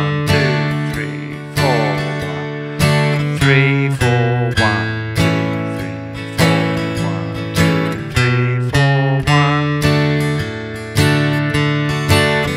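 Steel-string acoustic guitar played slowly with a pick: single bass notes followed by strums of open A and D major chords, with bass-note runs (A, B, C sharp, D) linking one chord to the other, up and back down.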